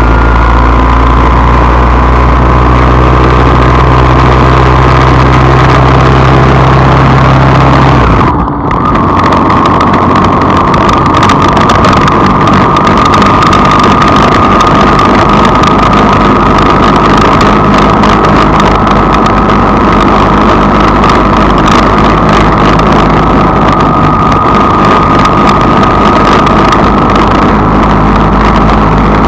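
Vehicle engine running steadily while travelling, with a constant whine. About eight seconds in, the deep low hum drops away abruptly after a brief dip, and a rougher running sound continues.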